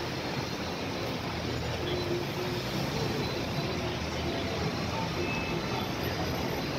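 Steady traffic noise of a busy city square: cars and taxis moving slowly, with a low general hubbub from the crowd.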